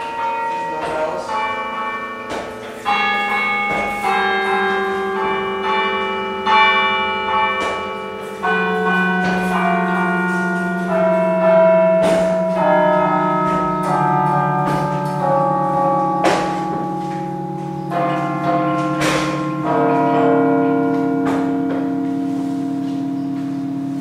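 Carillon bells played from the baton keyboard: a sequence of struck notes ringing and overlapping, quick in the first several seconds, then slower, with lower bells humming on underneath the higher ones.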